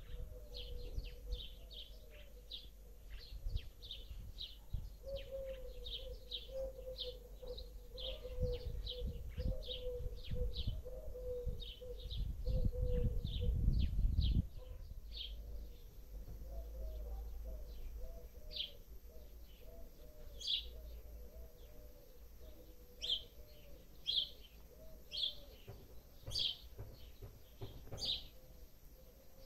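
Small songbirds chirping repeatedly outdoors, with short high chirps coming two or three a second over a fainter, lower wavering tone. For several seconds in the first half, gusts of wind rumble on the microphone.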